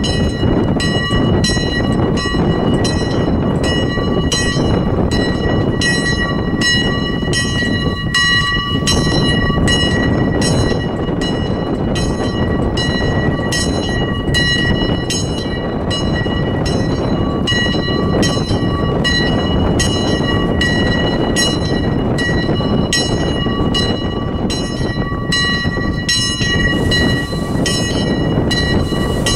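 Church bells ringing at close range. A high-pitched bell strikes in quick, even strokes, about two a second, over a loud, continuous wash of lower bell sound.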